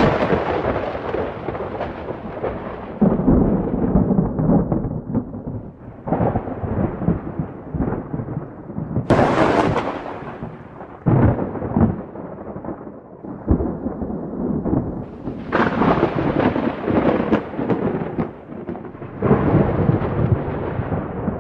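Wind buffeting the phone's microphone: a loud, rumbling noise that swells and drops in gusts.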